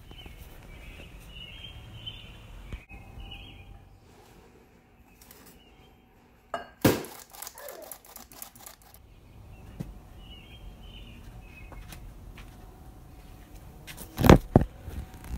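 Kitchen sounds of cake batter being made: a hand-crank flour sifter clattering over a glass bowl in a short burst about halfway through, then a spatula knocking against the glass mixing bowl several times near the end as the flour is folded into the batter.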